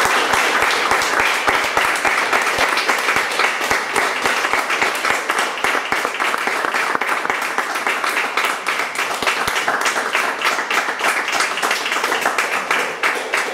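A small audience applauding: dense, steady clapping that dies away near the end.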